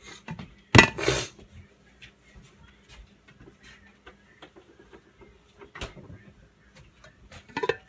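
A stainless steel mixing bowl with a plate on top is set down on a counter with a loud clatter about a second in. A sharp knock follows near the six-second mark, and the plate clatters against the bowl again near the end.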